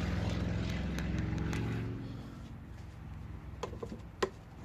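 A low engine-like drone that fades away about halfway through, followed by a few light clicks and one sharper tap near the end.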